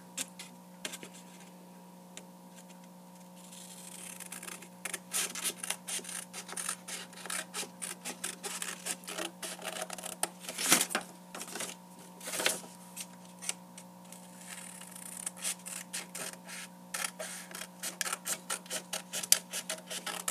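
Scissors snipping through folded paper: a long run of quick, irregular cuts that starts about four seconds in, with a few louder snips among them.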